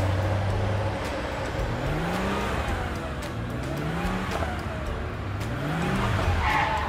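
Car engine accelerating: its pitch climbs three times, about two seconds apart, as if shifting up through the gears, over a low engine drone.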